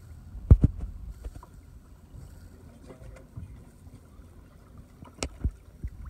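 Steady low rumble of a small fishing boat on open water, with a few sharp knocks: a loud double knock about half a second in and two more about five seconds in.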